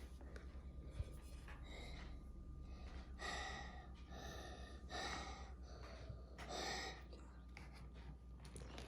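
A child breathing in and out in a series of short, breathy breaths roughly a second or more apart while inhaling steam for a cough and cold.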